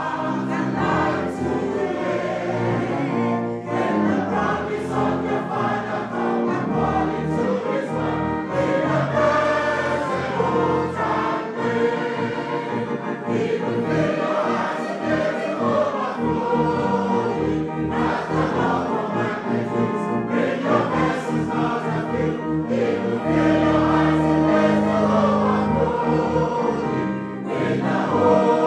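A church congregation singing a gospel hymn together with musical accompaniment, moving from the verse into the chorus about halfway through.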